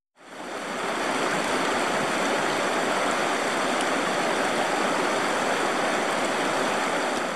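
Steady rush of a shallow river running over a riffle. It fades in over the first second, then holds even.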